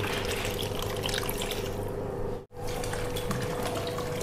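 Water pouring in a steady stream from a plastic bottle into a plastic bowl already holding fruit, jelly and syrup, splashing into the liquid. The sound cuts out briefly about halfway through, then carries on.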